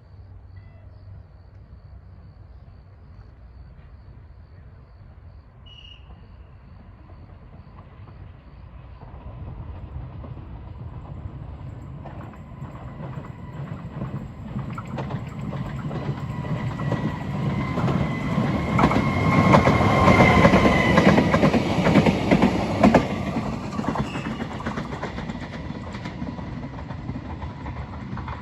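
FEVE narrow-gauge electric railcar running on the rails, growing steadily louder to a peak about twenty seconds in and then easing off. The wheels clack over rail joints, with a steady whine above the rumble.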